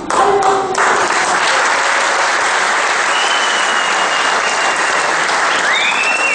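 A voice stops about a second in, and a theatre audience breaks into steady applause. A thin high tone sounds over the clapping in the second half.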